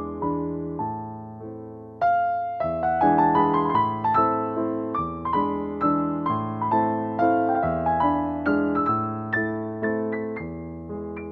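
Background piano music: a gentle melody of single notes and chords, each struck and fading away, growing louder from about two seconds in.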